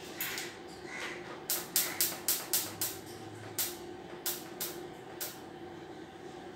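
Sharp metallic clicks and taps from TIG welding work on a stainless steel tube frame, over a steady electrical hum. A quick run of about five taps comes a second and a half in, then a few spaced ones.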